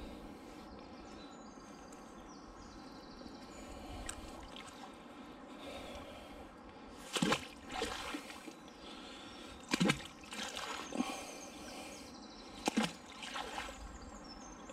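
Canal water trickling and splashing as a fishing magnet and its wet rope are hauled out, with several sharp knocks in the second half.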